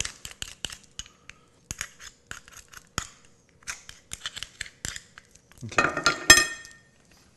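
Clam knife scraping and clicking against the shells of chocolate clams as the meat is cut out, in a run of short, uneven scrapes and clicks. About six seconds in comes a louder clatter with a ringing clink.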